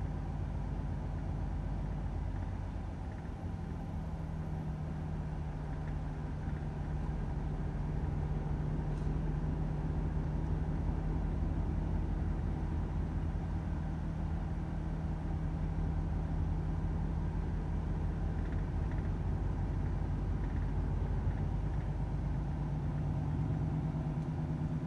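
Volvo FH 500 truck's 13-litre six-cylinder diesel engine running steadily, a low even hum with rumble underneath.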